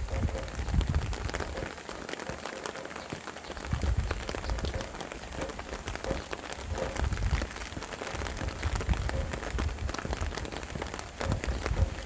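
Steady rain falling in a dense patter of drops, with gusts of wind rumbling low every few seconds.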